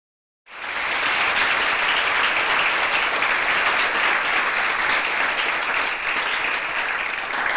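Audience applauding: the clapping starts suddenly about half a second in, holds steady, and begins to die away near the end.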